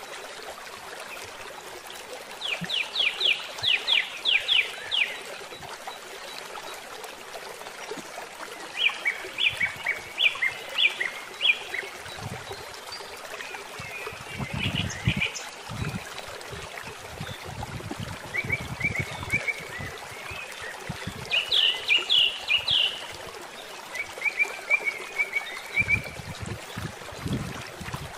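A bird calling again and again in quick runs of high repeated notes, about six bouts, over a steady outdoor hiss. Low dull bumps come and go in the second half.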